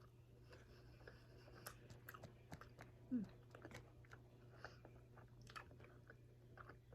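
Faint close-up chewing of a person eating sauced chicken wings: soft, wet, irregular mouth clicks and smacks, with a brief low voiced sound from the eater about three seconds in. A steady low hum runs underneath.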